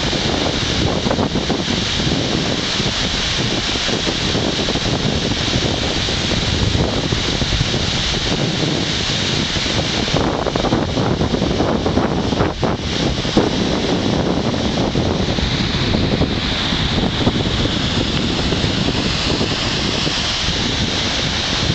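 Waterfall of the Big Sioux River in high flood flow, a loud, steady rush of falling and churning water. Wind buffets the microphone.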